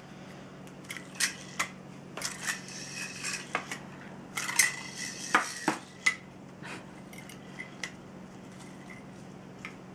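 A run of light clicks and clinks with brief ringing, bunched in the first six seconds, then a few faint ticks.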